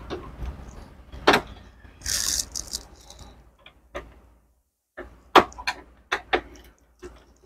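Screwdriver working the screws of a Canon imageCLASS MF3010 laser printer's power supply board and its metal chassis: separate sharp metal clicks and small rattles, with a brief scrape about two seconds in and a quick run of clicks in the last few seconds.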